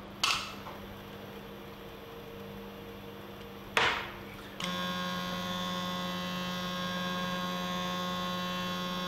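Rotary welding positioner's drive motor running the chuck very slowly: about halfway through, a louder steady electric hum with a whine of many even tones sets in and holds. Before it, a fainter steady hum and two brief knocks from handling the hand control on the steel table.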